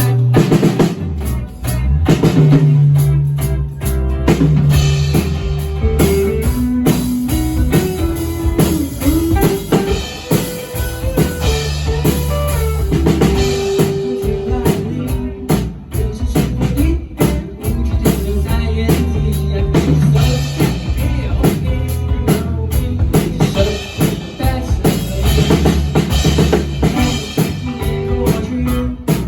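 Band music: drum kit and guitar playing an instrumental passage over a steady bass line, with no singing.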